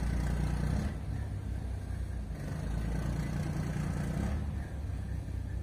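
Ferry's engine running with a steady low rumble.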